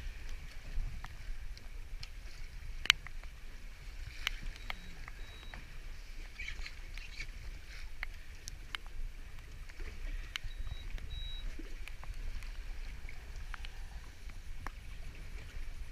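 Wind and sea noise on an open boat: a steady low rumble with choppy water, broken by scattered sharp clicks and knocks. The loudest click comes about three seconds in.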